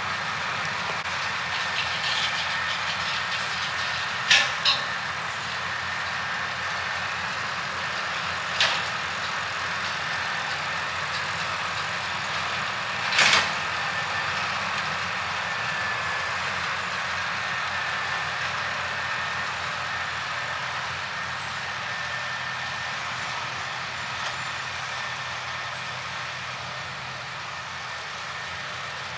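Engine of a grass-cutting machine running steadily, with a faint steady whine, while cutting paddock grass. A few sharp knocks come through, the loudest about halfway through.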